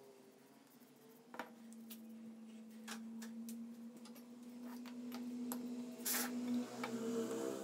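A few light clicks and taps of small wooden pieces being handled and set down, with a brief rustle about six seconds in, over a steady low hum.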